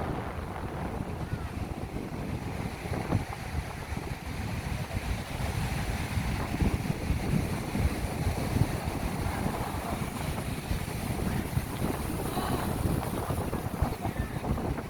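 Rough sea surf breaking and washing on the shore, with strong wind buffeting the microphone in irregular gusts.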